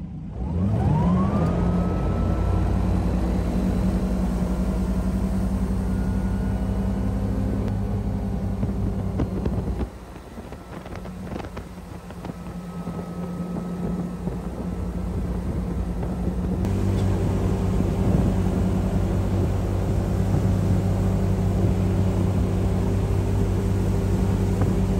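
Ski boat engine opening up, its pitch climbing quickly as the boat accelerates, then running steadily at high revs while towing a waterskier, with rushing wash and wind over it. About ten seconds in it drops away for a few seconds, then returns to a steady run.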